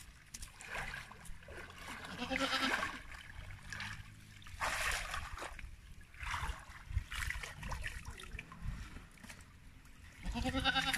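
Water splashing and draining as a bamboo-framed push net is lifted out of a shallow pond and its catch of weeds and twigs is sorted. A goat bleats twice, about two seconds in and near the end.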